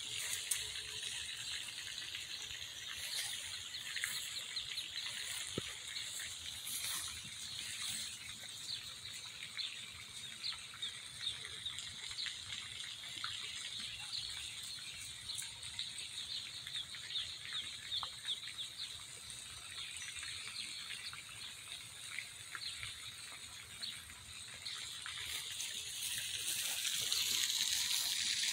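Steady hiss of splashing water from a pond spray fountain, dotted with many short high chirps. It grows louder near the end.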